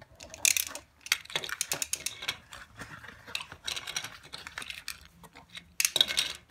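Irregular plastic clicking and rattling from Beyblade Burst tops and launchers being handled, with a louder burst of noise near the end.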